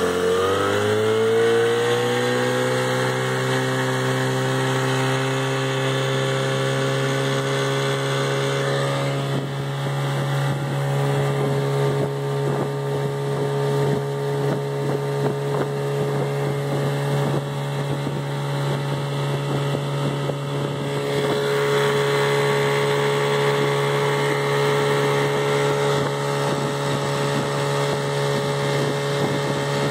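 1960s Mercury Merc 110 9.8 hp two-stroke outboard opened up to full throttle, its pitch climbing over the first second or two and then running steady at high speed.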